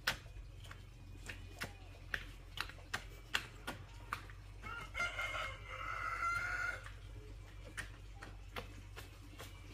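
A rooster crowing once, about five seconds in, a call of about two seconds. Sharp taps or knocks sound on and off, roughly twice a second, throughout.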